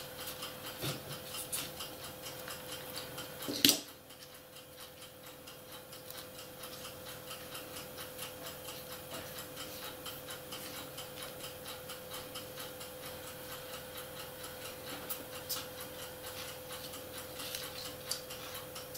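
Faint handling of plastic H0 model railway track pieces on a workbench, with one sharper click a little under four seconds in. Under it runs a steady, even ticking and a faint steady hum.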